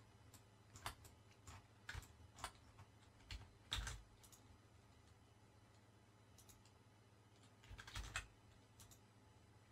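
Scattered clicks of a computer keyboard and mouse against quiet room tone: a handful of separate clicks in the first four seconds, then a short flurry about eight seconds in.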